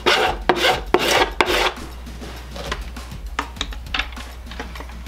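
A cordless drill's plastic body scraping against a freshly cut PVC pipe holder as it is fitted in: a few rough, rasping scrapes in the first second and a half, then lighter knocks and clicks.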